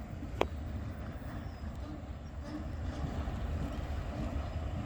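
Freight train of tank wagons rumbling low and steadily, with one sharp knock about half a second in.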